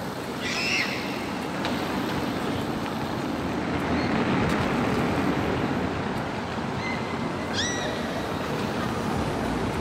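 Steady city street traffic noise, with two short high-pitched chirps, one about half a second in and another near eight seconds.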